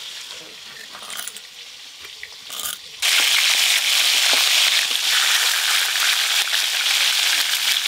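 Faint scraping of spice paste being ground on a stone slab, then from about three seconds in a loud, steady sizzle of turmeric-coated pona fish frying in hot oil in a wok.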